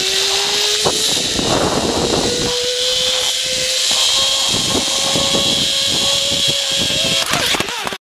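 Zipline trolley running along a steel cable: a loud steady hiss with a single whine that climbs slowly in pitch, and a brief clatter near the end.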